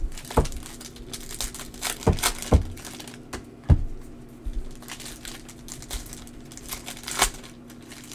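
Trading-card pack wrappers crinkling and tearing as packs are ripped open, with cards handled and several sharp taps mixed in.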